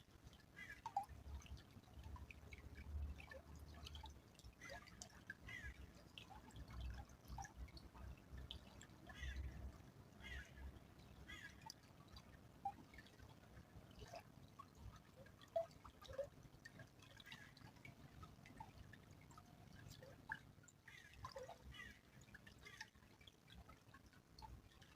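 A small stream trickling faintly, with irregular drips and plinks of water.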